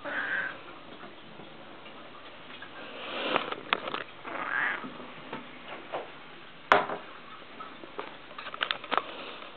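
A few soft rustling swells and scattered clicks. The sharpest click comes about two-thirds of the way in, and a quick run of small clicks follows near the end.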